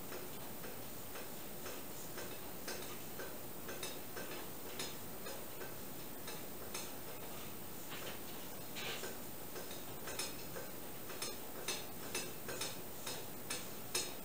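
Light scratchy taps, about two a second and uneven in strength, from a brush stroking wood stain onto oak boards.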